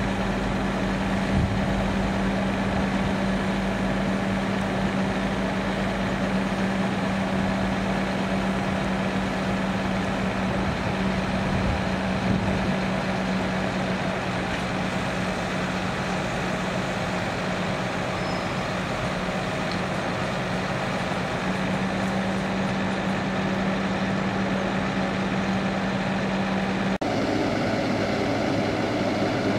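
Heavy lorry's diesel engine running steadily, powering its truck-mounted crane, with a constant low hum over the engine noise. Near the end the hum stops abruptly and the engine sound changes.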